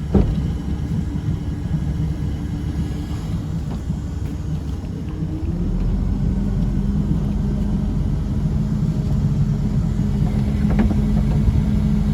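An engine running steadily with a low rumble. About halfway through, its note shifts and gets a little louder and deeper, as under a change of load or speed.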